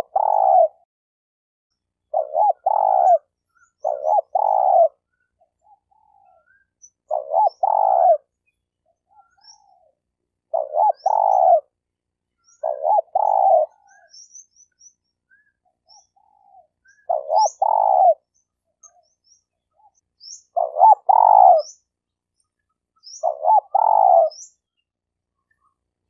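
Spotted dove cooing: short phrases of two or three low coos, repeated every two to four seconds, about nine times. Faint high chirps of small birds sound in the background.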